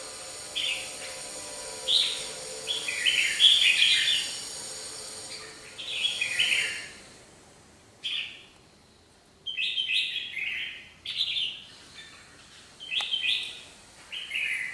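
Red-whiskered bulbuls singing in short, bright, chattering phrases, a dozen or so in quick clusters with a lull in the middle. It is a territorial exchange between a caged lure bird and a rival pair.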